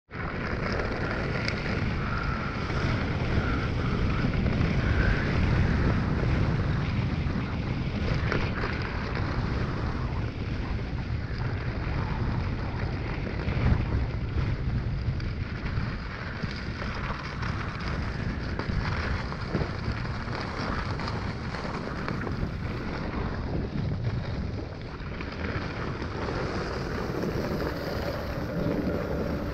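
Wind rushing over the microphone while skis hiss and scrape over packed, groomed snow on a fast downhill run. A faint steady hum joins near the end.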